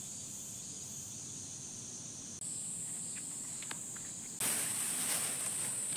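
Summer cicadas droning steadily in a high-pitched, unbroken hiss that grows louder about two and a half seconds in and again about four and a half seconds in. Faint ticks and rustles sound under it.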